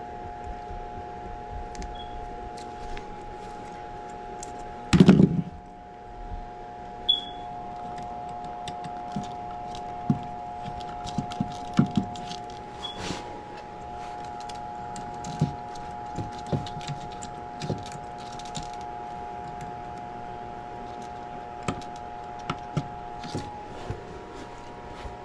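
Hand tools and wiring being handled at a furnace control board: scattered small metallic clicks and rattles of pliers and wire, with one louder thump about five seconds in, over a steady high hum.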